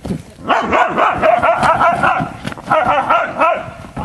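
Dogs yipping and barking excitedly in play, in two noisy stretches: one starting about half a second in, the other near the end.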